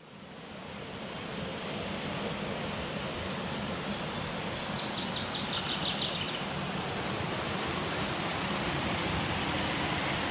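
A small stream running: steady rushing water, fading in over the first couple of seconds. A brief, rapid high trill sounds near the middle.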